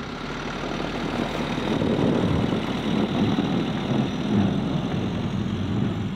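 Sprinter box-van camper's engine pulling away under power from standstill, its all-terrain tyres rolling over packed snow as it drives off with good traction. The sound builds over the first two seconds and then holds steady.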